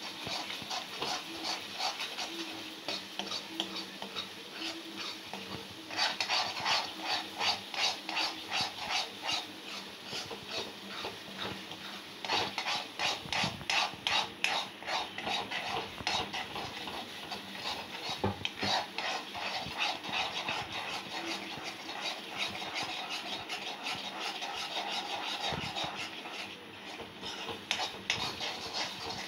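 Spatula scraping and stirring thick banana-flower paste around a heavy iron kadai, in rhythmic strokes about two to three a second. The strokes grow louder about six seconds in. The paste is being fried down in sesame oil to the stage where the oil begins to separate.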